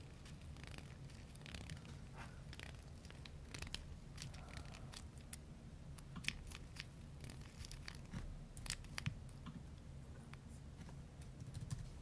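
Faint, irregular small clicks and scratchy handling sounds from a fidget cube being fiddled with, over a low steady hum.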